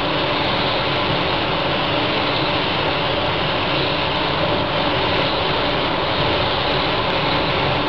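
Hiss of a SATAjet 4000 paint spray gun spraying a coat of paint, over the steady rush and hum of a spray booth's ventilation.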